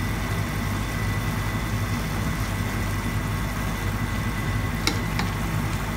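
A steady low mechanical hum, with two light clicks of a wooden spatula against the pan of cauliflower and carrots a little before the end.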